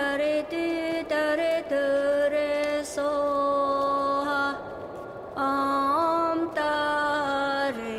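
A slow Buddhist mantra sung by a single high voice, in long held notes with short breaths between phrases.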